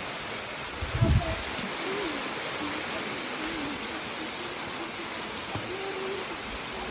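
Steady rush of a moorland beck's water over rocks, with one low thump about a second in.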